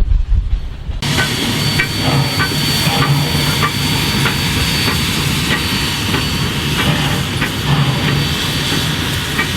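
A train rumbling past for about the first second, then a steam locomotive hissing steam steadily, with a thin high whine and regular light ticks a little over twice a second.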